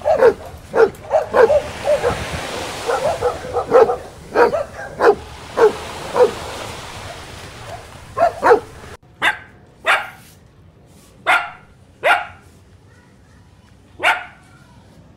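Several dogs barking in a quick, uneven string as they play-fight. About nine seconds in the background drops away, and a puppy gives single sharp barks, one every second or two.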